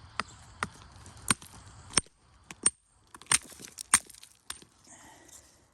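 Chert rocks being struck stone on stone: about nine sharp knocks with a high, glassy ring, coming at uneven intervals. The rocks are being tested by striking them to see the quality of the stone inside.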